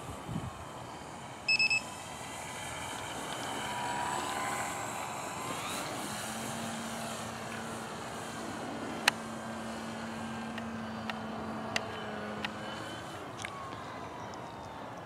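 Radio-controlled model airplane's motor whining as it flies overhead, the pitch shifting as it passes. A short, loud electronic beep sounds about a second and a half in, and a few sharp clicks come later.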